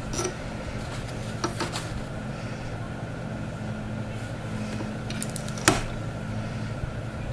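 A few light knocks and clicks as a loaf of cold-process soap is pushed and set along the wooden bed of a wire soap cutter, the sharpest about five and a half seconds in, over a steady background hum.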